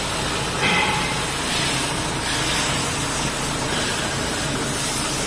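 Steady hissing noise with a faint low hum underneath.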